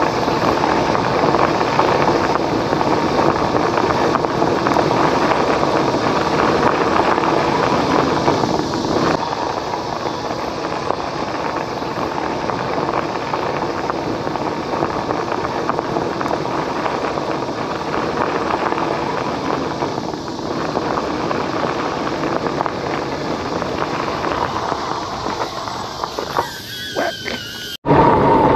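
An e-bike being ridden: a steady rushing noise with a faint steady whine. Near the end comes a short squeal, then the sound cuts off suddenly.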